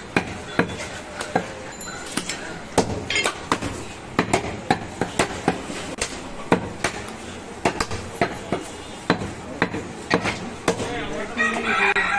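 Butcher chopping mutton: a quick, irregular run of sharp chopping strikes, about two or three a second. Voices come in near the end.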